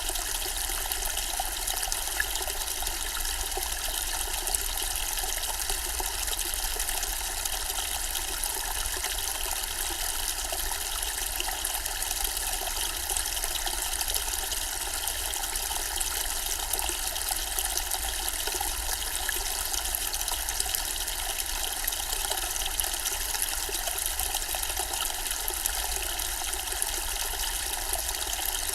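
Zen-style water fountain, with water trickling and splashing steadily into its basin.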